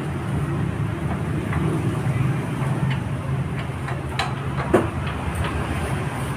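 Overhauled 24 hp engine driving a 10 kW generator, running at a steady speed, with a few light clicks and one sharp knock about three-quarters of the way through.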